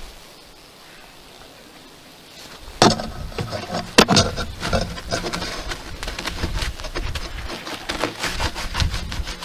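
A fabric hive cover being spread and pressed down over the wooden top bars of a beehive: rustling and scraping with many small clicks against the wood. Two sharp wooden knocks come about three and four seconds in, after a quiet start.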